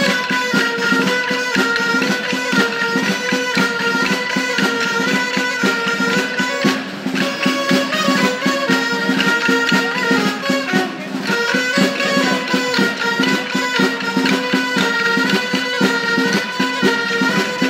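Traditional Spanish folk dance tune with a repeating wind-instrument melody over a steady low tone, accompanied by the rhythmic clacking of the dancers' wooden sticks struck together.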